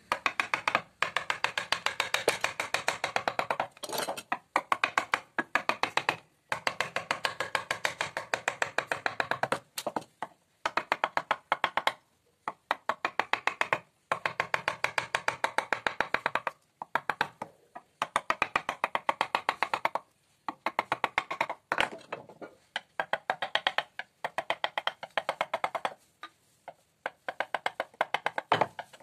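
Wooden mallet tapping a carving chisel into a wooden panel: quick sharp knocks, about five a second, in runs of a few seconds broken by short pauses.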